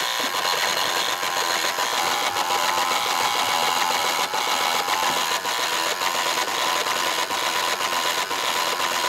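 Homemade relay sequencer running, its electromechanical relays switched by a 555-timer clock and clicking so fast that the clicks run together into a steady, even clatter.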